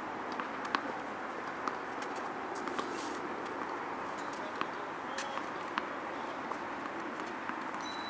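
A tennis ball bounced on the court before a serve: short sharp taps spread about a second apart. Behind them is steady outdoor background noise with a few faint bird chirps.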